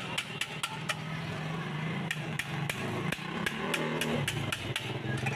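Hand hammer tapping a fitting on a kick scooter's aluminium frame: repeated sharp metallic knocks, about two or three a second, at an uneven pace.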